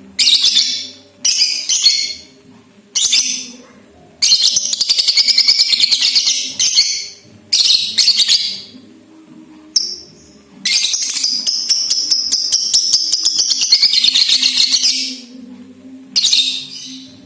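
Lovebird's 'ngekek' song: repeated bursts of rapid, high-pitched chattering trills, the longest running about four seconds, with short pauses between.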